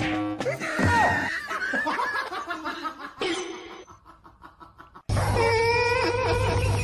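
People laughing, fading away over a few seconds, then an abrupt cut about five seconds in to a louder recording with a steady low hum.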